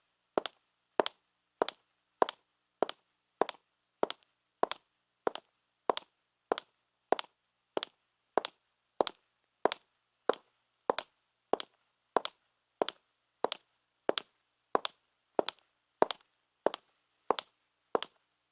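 Footsteps on a marble floor at a steady walking pace, about three steps every two seconds, each step a sharp click.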